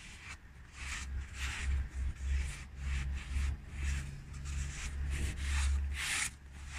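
Cloth rag scrubbing and wiping the bore of a truck air compressor cylinder, a run of quick rubbing strokes about two a second with the loudest one near the end, over a low steady hum. The cylinder is being cleaned of heavy dirt.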